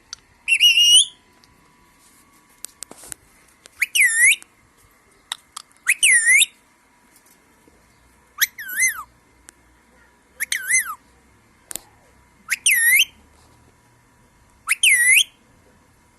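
Parrot giving loud whistled calls, seven of them about two seconds apart, most dipping and then rising in pitch. A few short clicks fall between the calls.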